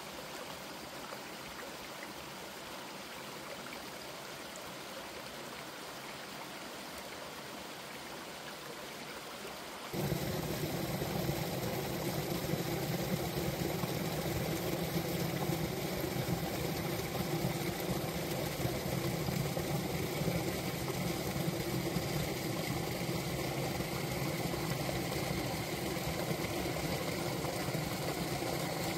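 Mountain stream water running over and under ice-covered rocks, a steady rush. About ten seconds in it jumps to a louder, deeper flow.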